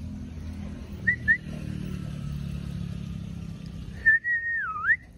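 A person whistling: two short chirps about a second in, then one longer whistle near the end that holds, dips lower and rises again. A low steady rumble lies under the first four seconds.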